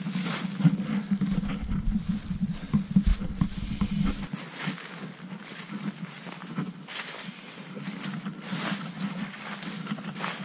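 Footsteps crunching and rustling through dry fallen leaves, an uneven series of crackles, over a steady low hum; wind rumbles on the microphone for the first four seconds.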